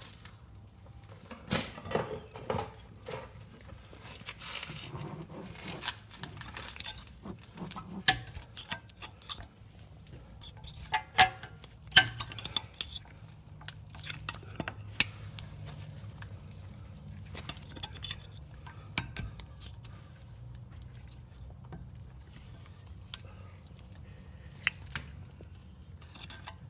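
Irregular clicks, taps and scrapes of hand work on a rear brake caliper: a plastic trim tool and brake pad knocking against the caliper while its pistons are pushed back into their bores to make room for the new pad, with a few sharper knocks.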